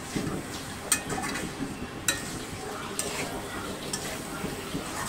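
Spatula stirring beef and fried potato pieces in a metal wok-style pan, scraping and clinking against the pan about once a second, while the meat sizzles lightly in the oil.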